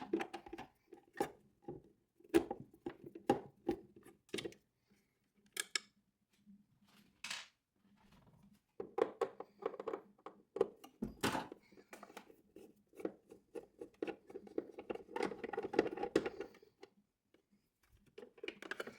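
Plastic clicks, knocks and scraping as a refrigerator icemaker's plastic cover is worked off and its screws are undone. The scattered sharp clicks at the start give way, after a quieter spell, to several seconds of rapid clicking and scraping.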